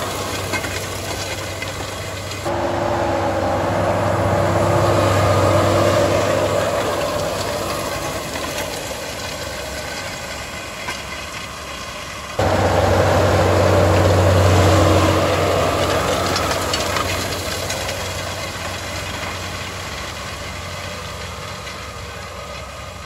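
Fendt 939 tractor's six-cylinder diesel engine running steadily under load while pulling a Väderstad seed drill through the soil. The sound jumps up suddenly twice, a few seconds in and about halfway through, and each time fades slowly as the tractor moves away.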